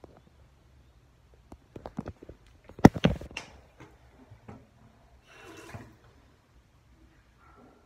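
Handling noise from a phone being moved and set down on a hard surface: a few clicks, then one sharp clatter about three seconds in, followed by smaller taps. A short hiss a couple of seconds later.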